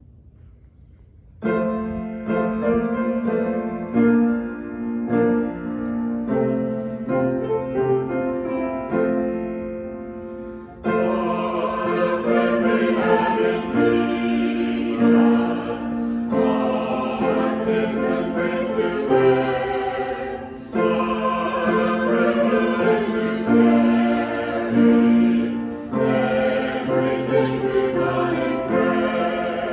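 A choir singing a hymn with keyboard accompaniment: an instrumental introduction starts about a second and a half in, and the fuller choral singing comes in about eleven seconds in.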